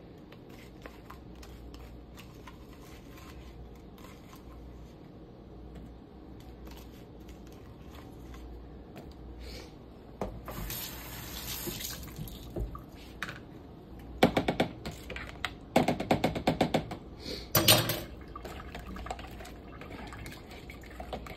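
A spoon stirring a wet seasoning marinade in a plastic container, knocking and scraping against its sides in a quick run of strokes about two-thirds of the way through. A brief hiss comes a little before it.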